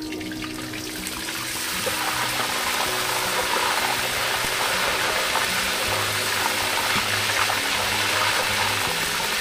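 Battered oysters deep-frying in a wok of hot oil at 190 °C for their second fry: a steady sizzle that builds over the first two seconds as they go into the oil. Background music plays underneath.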